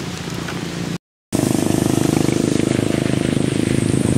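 Motorcycle engine running steadily at low speed close by, with a fast, even pulse. It starts after a brief gap about a second in.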